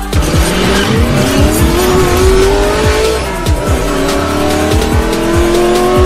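A race-car engine sound effect revving in a rising pitch, dropping once about halfway through like a gear change, then climbing again. Underneath is hip-hop music with repeated deep, booming drum hits.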